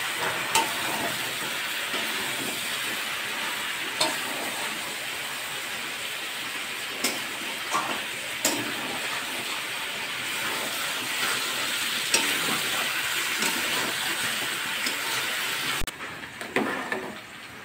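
Steady sizzling of chicken and potatoes dry-frying (kosha stage) in an aluminium kadai, with a few sharp clinks of a metal spatula against the pan. The sizzle cuts off suddenly near the end, leaving a few softer clinks.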